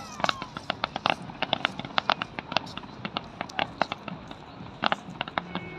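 Fireworks crackling and popping: a rapid, irregular run of sharp bangs, several a second.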